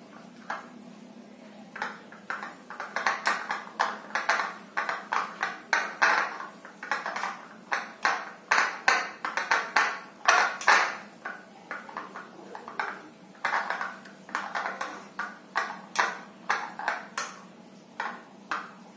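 Metal spoon clinking and scraping against a plate while stirring a soft, sticky bait dough: quick, irregular taps, a few each second.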